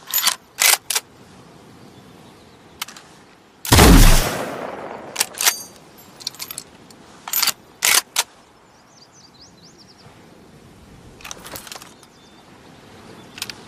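Bolt-action rifle sound effect: one loud shot a little over a third of the way in, with a long fading rumble, set among short sharp metallic clicks of the bolt being worked before and after it.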